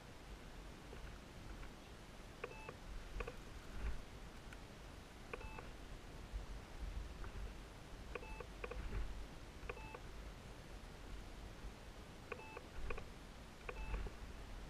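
Faint short beeps, a few at a time in clusters every few seconds, over a low rumble.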